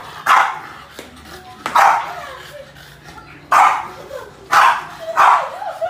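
A dog barking five times, at uneven gaps of about one to two seconds.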